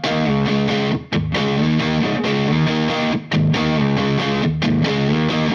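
Electric guitar played through the drive side of a Valco Bloodbuzz drive/fuzz pedal into an ENGL Powerball II amp: overdriven chords played in phrases, with short breaks about a second in and again just after three seconds.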